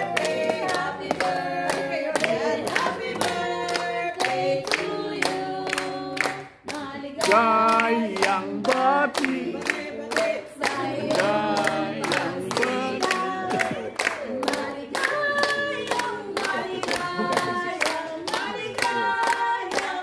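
A group of party guests singing a birthday song together, clapping along in time at about three claps a second, with a short break between lines about six and a half seconds in.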